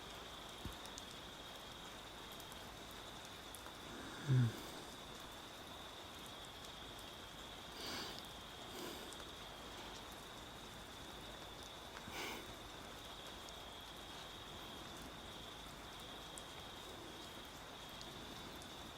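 Quiet room tone: a steady microphone hiss with a faint, thin high whine, broken by one short low sound about four seconds in and a couple of fainter soft noises near the middle.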